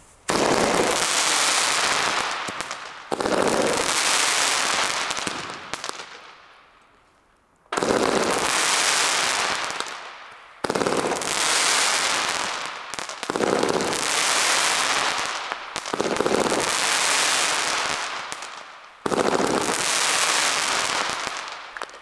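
Pyroart Skadi waterfall firework battery firing about seven shots, a few seconds apart. Each starts suddenly and its burst of falling gold sparks dies away over two to three seconds.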